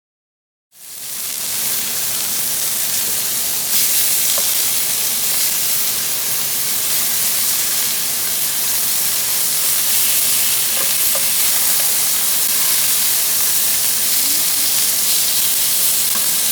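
Rolled, pesto-stuffed chicken breasts sizzling steadily as they sear in hot oil in a frying pan. The sizzle fades in about a second in, after a moment of silence.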